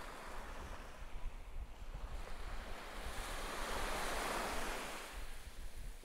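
Small surf breaking and washing on a sandy beach. One wash swells to its loudest about four seconds in and then eases. Wind rumbles on the microphone throughout.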